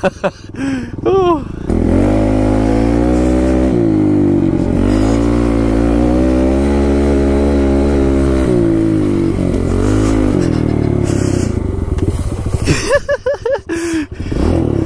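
Kawasaki KLX110L pit bike's small four-stroke single-cylinder engine running under throttle, its pitch rising and falling as the rider opens and rolls off the throttle. Near the start and near the end it comes in short, choppy blips, with a longer stretch of steadier riding between.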